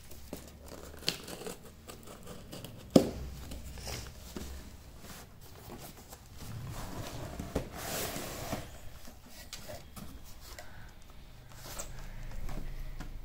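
Cardboard shipping box being opened by hand: packing tape peeled and torn off, with cardboard and plastic wrapping rustling and crinkling. A single sharp knock about three seconds in is the loudest sound.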